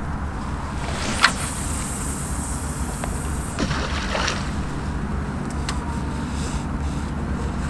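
Casting a bottom-fishing rod: a sharp swish, then fishing line hissing off the spinning reel for about two seconds, followed by a click from the reel a couple of seconds later. Wind rumbles on the microphone throughout.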